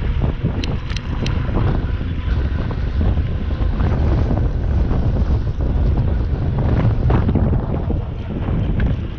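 Strong wind buffeting the microphone: a heavy, fluctuating low rumble, with three quick clicks about a second in.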